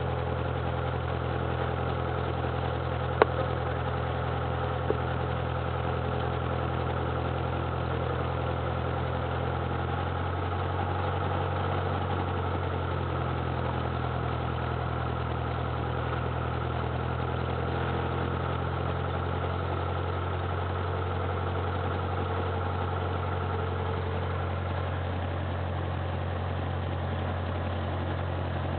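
Cessna 172's piston engine and propeller running steadily at low, idle-range power while the plane taxis, heard inside the cabin. Two short sharp clicks stand out, about three and five seconds in.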